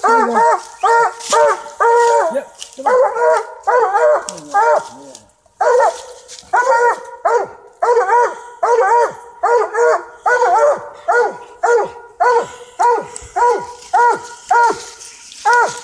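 Coon dogs tree barking: a steady chop of loud barks, about two a second with a short break about five seconds in, the sign that they have a raccoon treed.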